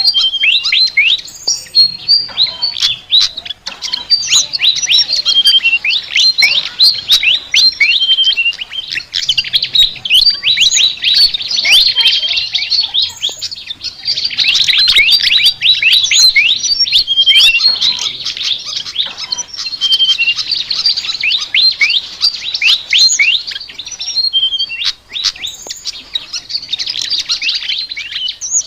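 A sikatan (flycatcher) singing a fast, continuous chatter of short, mostly downward-sweeping chirps, run together almost without pause.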